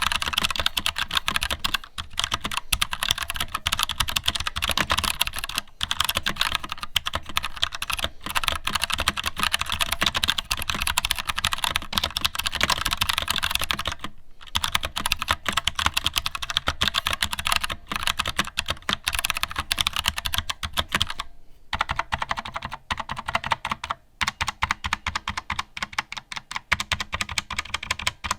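Fast, continuous typing on an Akko 3061 60% mechanical keyboard with Gateron orange tactile switches in a plastic case with a steel plate, with brief pauses about halfway through and again later on.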